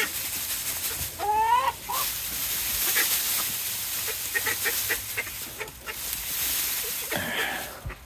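Poultry in a pen of ducks and a chicken calling: one rising call about a second in, then a run of short, quick notes around the middle. A steady hiss of rain runs underneath.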